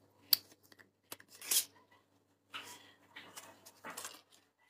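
A few short, sharp clicks and soft rustles close to the microphone, with quiet gaps between, over a faint steady hum.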